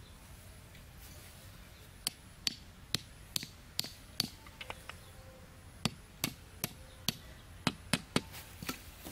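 An axe head knocking a bamboo stake into the ground: a series of sharp knocks, about two to three a second, starting about two seconds in with a short pause near the middle.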